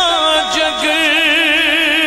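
Man singing a Punjabi naat into a microphone. He glides down at the start, then holds a long note with a wavering vibrato over a steady drone.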